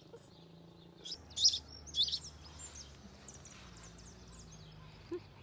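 Nine-day-old sparrow nestling cheeping, begging for food: two loud high chirps about one and a half and two seconds in, then a run of fainter short cheeps.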